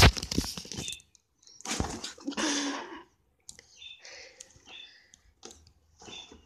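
A fabric drawstring bag rustling and scraping as a cat plays inside it and a hand prods it, opening with a loud bump, then a long burst of rustling about two seconds in and smaller scratchy rustles and taps after.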